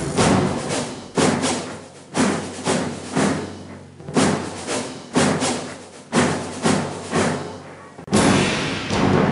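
Background music with heavy drum hits about once a second, each dying away before the next.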